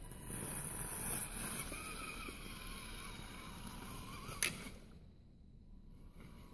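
Axial SCX10 1/10-scale RC crawler's electric motor and geared drivetrain whining as it drives over snow, the pitch wavering with the throttle. A sharp click comes about four and a half seconds in, and the whine then stops.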